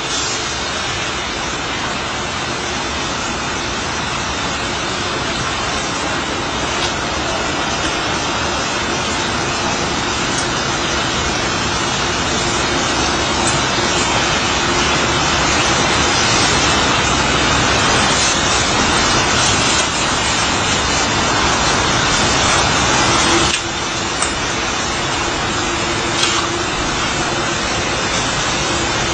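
Steady outdoor city noise, like distant traffic. About three-quarters of the way through, a faint steady droning tone comes in and holds: the kind of sound passed around as a mysterious noise from the sky.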